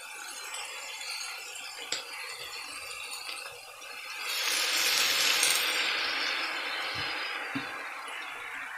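Shredded cabbage, carrot and green beans sizzling in a hot wok with soy sauce just added. The sizzle swells louder about halfway through, and there are a few light knocks.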